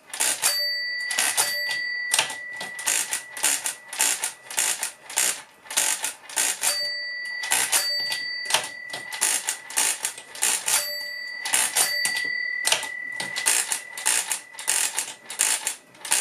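Walther WSR160 pinwheel calculator, badged Muldivo Mentor, being hand-cranked in quick succession: a steady clatter of handle turns and carriage shifts. Its bell rings in three separate stretches. Each ring is the underflow signal from dividing by repeated subtraction, telling the operator to add one turn back and shift the carriage.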